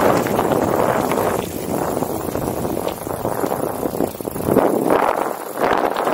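Wind buffeting the microphone while a bicycle rattles over a rough downhill track. The rushing noise eases for a couple of seconds, then swells again near the end.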